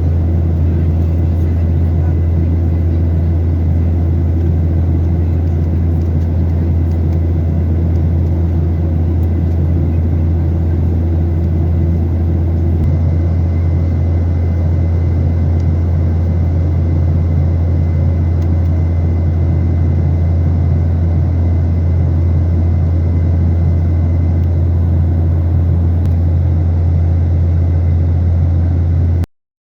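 Steady low drone of a passenger airliner's engines heard inside the cabin, unchanging, with a faint high whine over it; it cuts off abruptly near the end.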